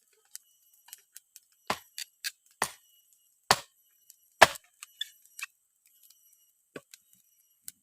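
Firewood being split by hand with a chopping blade: a series of sharp, irregular strikes into wood, the loudest about three and a half and four and a half seconds in, with lighter knocks between.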